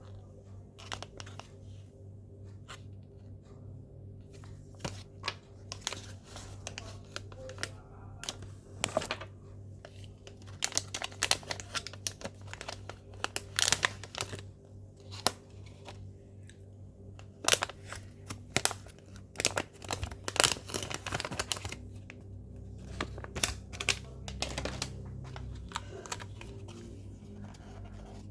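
Packaging being handled and torn open: irregular sharp crinkling, rustling and tearing, with clusters of clicks in the middle stretch.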